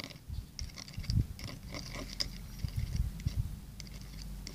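A toothpick clicking and scraping against a small clear plastic container while stirring baby wash mixed with salt, as a slime attempt. Irregular light ticks, with a few dull bumps about a second in and near three seconds.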